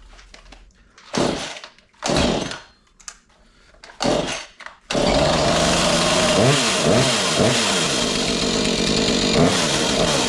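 Husqvarna 435 two-stroke chainsaw being pull-started after a repair: three short pulls on the starter cord, then the engine catches about five seconds in and runs, revved up and down a few times.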